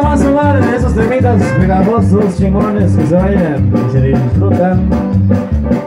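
Live band playing loud, upbeat Latin dance music, with a steady bass beat under a wavering lead melody.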